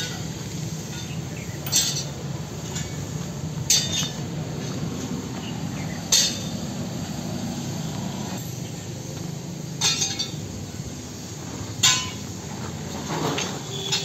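About six sharp metallic clinks, spaced irregularly a couple of seconds apart, over a steady low background hum.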